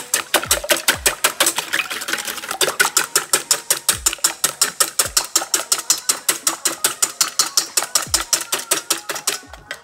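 Wire balloon whisk beating eggs in a stainless steel bowl: fast, even clicking of the wires against the metal, about six strokes a second, stopping near the end.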